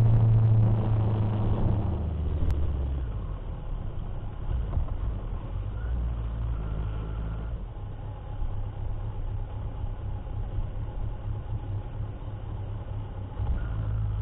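Motorcycle engine running on the road, dropping after about two seconds to a quieter, low steady idle; near the end it picks up again as the bike pulls away.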